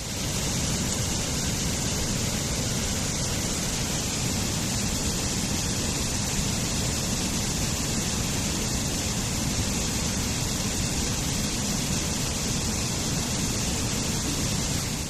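Waterfall: falling water making a steady, even rushing noise.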